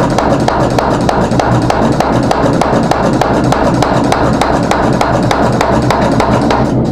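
Power hammer pounding a red-hot meteorite Damascus billet in rapid, even blows, several a second, over a steady motor hum.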